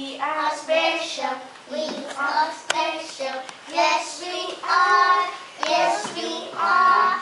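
A group of young children singing a song together, with hand claps, one sharp clap about two and a half seconds in.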